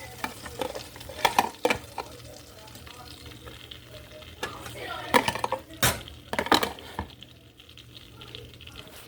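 Omelet mixture sizzling in butter in a frying pan, with a utensil knocking and scraping against the pan in short clusters, several in the first two seconds and again around five to seven seconds in, then only the sizzle.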